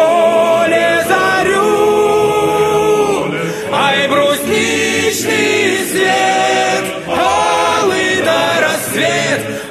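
Choir singing a cappella, long held chords that change every second or two.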